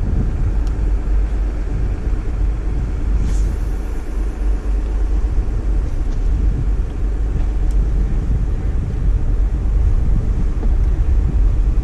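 Wind buffeting the microphone: a steady low rumble, with a brief hiss about three seconds in.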